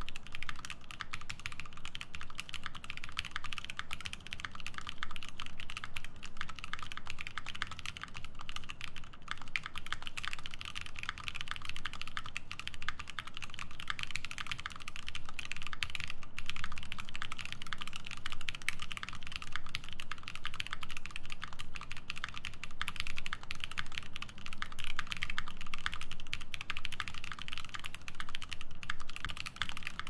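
Steady, continuous typing on an Obliterated75 mechanical keyboard with lubed Drop Holy Panda tactile switches in an FR4 plate and GMK Cafe ABS keycaps: a dense, unbroken stream of key clacks.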